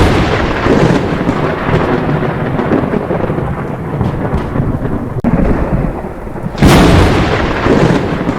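Thunder: a long rolling rumble, with a loud new clap about two-thirds of the way in that then rolls away.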